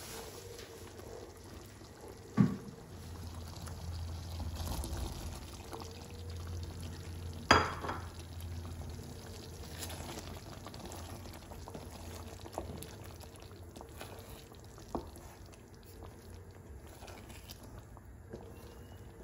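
Cream sauce simmering in a frying pan as a wooden spatula stirs it and meatballs are turned through it. Two sharp knocks stand out, about two and seven and a half seconds in, with a few lighter taps later.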